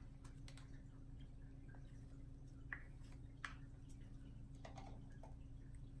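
Near silence over a low steady hum, with a few faint scattered clicks and light taps of small mixing cups being handled and set down on a wooden table.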